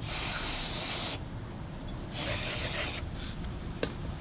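Spray hissing in two bursts of about a second each, the second starting about two seconds in, while the carburetor is being cleaned. A short click comes near the end.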